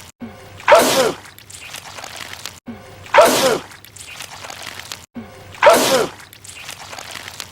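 A man sneezing three times, about two and a half seconds apart, the same sneeze repeated in a loop. Each is a short intake followed by a loud sneeze that falls in pitch.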